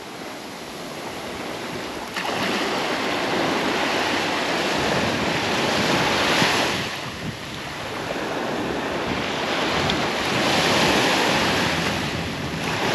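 Small waves breaking and washing up a sandy beach, swelling twice, about six and eleven seconds in, with wind buffeting the microphone.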